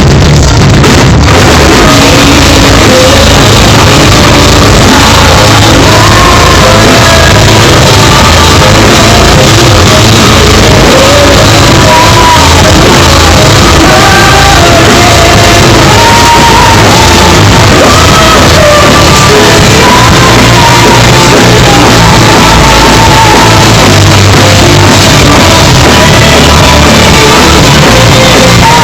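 A metal band playing live, with a loud sung lead vocal over the full band. The amateur recording is overloaded and distorted.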